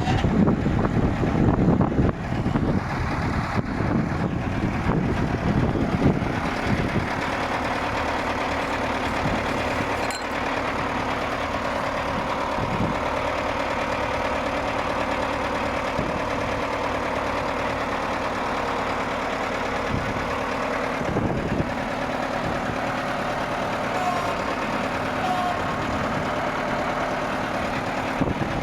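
1970 Ford 5000 tractor's four-cylinder engine idling steadily. Wind buffets the microphone over the first few seconds.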